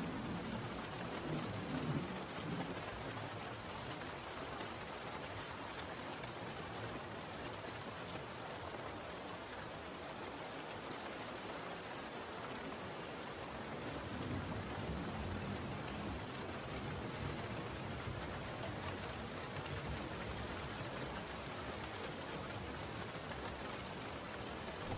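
Steady rain falling, a dense even hiss, with the low rumble of distant thunder dying away in the first couple of seconds and a fainter rumble about fifteen seconds in.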